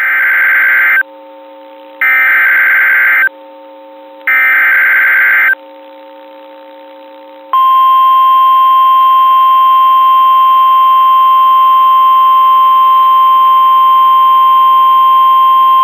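Emergency Alert System SAME header: three harsh digital data bursts about a second each, then a steady single-pitch NOAA Weather Radio 1050 Hz warning alarm tone for about nine seconds. Together they signal the start of a National Weather Service severe thunderstorm warning.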